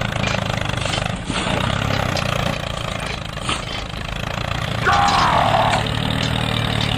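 Tractor engine running steadily at a low pitch. About five seconds in, a brief higher wavering sound rises over it.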